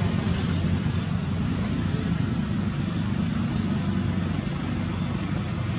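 Steady low rumble of a motor vehicle engine running, with a constant hum and no breaks.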